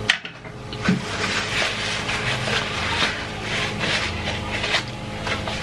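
Whole roast chicken being torn apart by hand close to the microphone: a run of crackling, rasping strokes as the skin and meat pull away.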